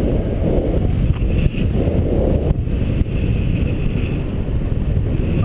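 Wind from the paraglider's airspeed buffeting the microphone: a steady, loud low rumble.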